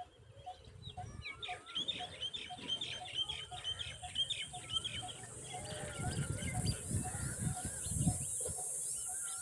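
Common babblers chattering: a rapid run of quick, squeaky, high notes, with a soft call repeating about two or three times a second underneath.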